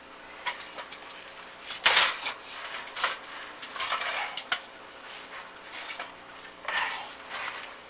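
Irregular scraping and knocking of a chimney inspection camera and its cable rubbing against a brick flue as it is fed down, with the loudest scrape about two seconds in and another near the end.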